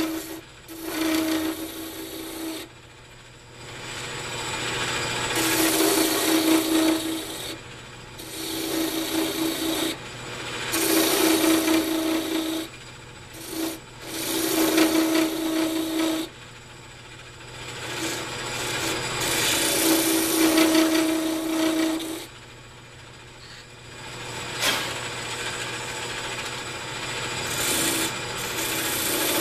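A wood lathe spinning a cocobolo pen blank while a hand-held turning tool cuts it in repeated passes. Each pass is a rasping scrape with a hum, lasting one to three seconds, about eight times, with the lathe running more quietly in between.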